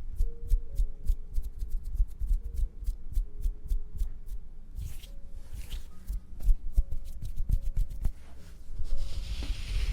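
Close-miked ASMR trigger sounds: a quick run of crisp clicks and snips, several a second, thinning out about halfway, with a soft hissing swish about five seconds in and another near the end.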